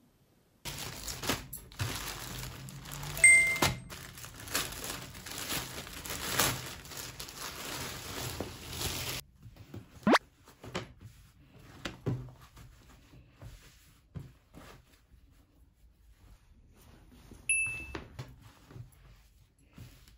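Fabric rustling with soft knocks and clicks as gym shorts are handled and folded on a desk, busiest in the first half. Two short chime-like tones sound, one about three seconds in and one near the end.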